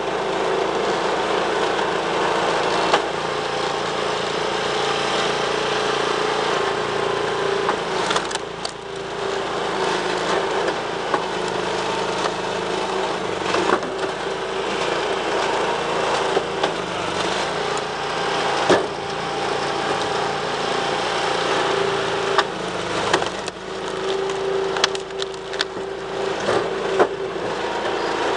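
Hydraulic log splitter running steadily, its motor and pump holding one even tone, while logs crack apart on the splitting wedge; sharp knocks and cracks of wood splitting and split pieces being handled come every few seconds.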